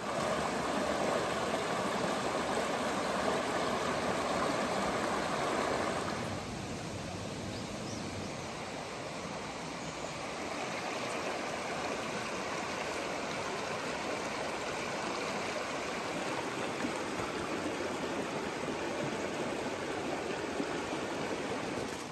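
A mountain stream rushing and splashing over boulders, a steady water noise. About six seconds in it turns a little quieter and thinner.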